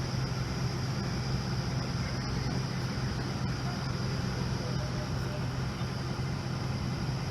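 Steady low rumble of a fire truck's diesel engine idling, with no change in pitch or level.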